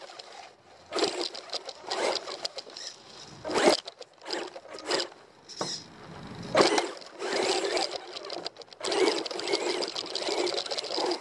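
Onboard sound of an RC car driving on dirt: the motor and drivetrain whir in repeated bursts as the throttle is pulled on and off, with the tyres scrabbling over loose dirt and grit.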